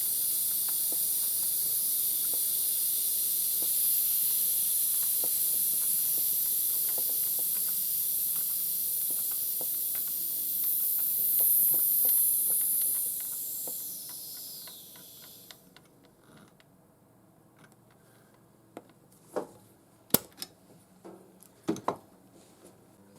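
A steady high hiss of air or spray that tails off and stops about fifteen seconds in. A few light clicks and knocks follow near the end.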